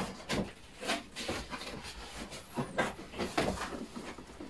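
Cardboard box being opened by hand: the plastic wrap rustling and the top flaps scraping and folding back, in a series of irregular rustles and light knocks.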